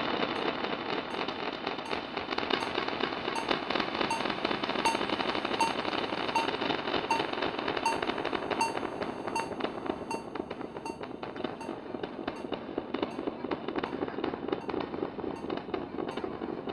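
Experimental electronic noise soundtrack: a dense crackling, hissing texture full of fine clicks. Over it a regular pulse of short blips sounds about every three-quarters of a second.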